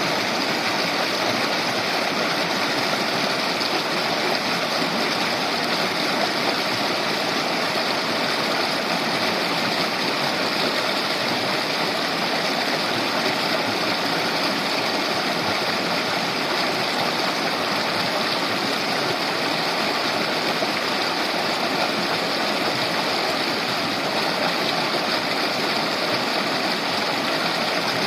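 A shallow river babbling over its stony bed: a steady, even rush of flowing water.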